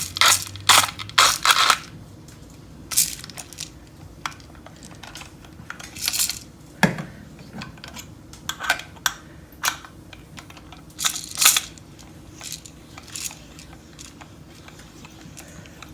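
Irregular clicks, rattles and rustles of coffee beans and a Tiamo hand-crank coffee grinder being handled, as beans go into the grinder and the grinding begins.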